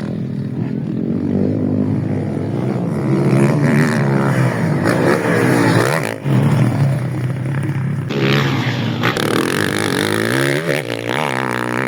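Motocross motorcycle engines revving as the bikes ride, their pitch repeatedly rising and falling, with more than one engine heard at times.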